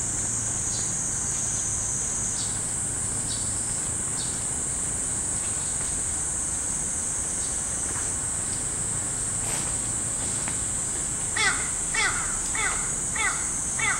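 A crow cawing near the end, five harsh caws about half a second apart. Under it runs a steady high insect drone, with faint scattered tinkles from hanging glass wind chimes.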